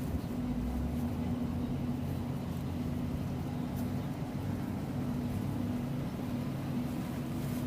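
Steady running of a large diesel engine on the farm machinery at work in a maize silage harvest, holding a constant drone without revving up or down.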